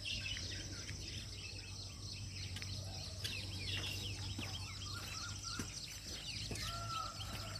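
Many small birds chirping together in a continuous chorus of quick, overlapping short calls, over a steady high hiss, with a clearer arched call about seven seconds in.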